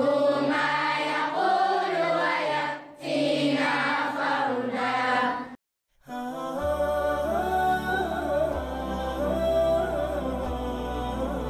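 A group of voices chanting together in unison, cut off abruptly a little past halfway. After a brief silence, music starts: a wavering melodic line over a low steady drone.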